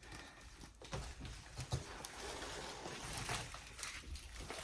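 Rustling and light clicking of packing peanuts and cardboard as a hand rummages through a shipping box.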